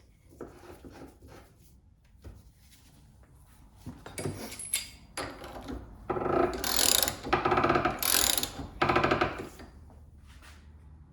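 A press or ratchet being cranked to push a U-joint bearing cup into a driveshaft yoke, metal grating against metal. Light clicks and handling come first, then three loud grating strokes in the second half.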